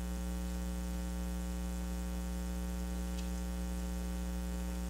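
Steady electrical mains hum with a layer of hiss, made of many fixed tones stacked over a low drone; a faint tick about three seconds in.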